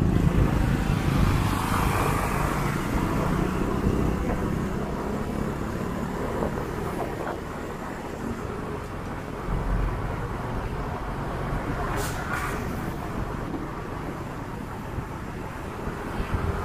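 Motorcycle running at low speed through city traffic, with the engines of other motorcycles and cars around it. The engine noise is loudest in the first couple of seconds, then settles to a steady lower drone, with a short hiss about twelve seconds in.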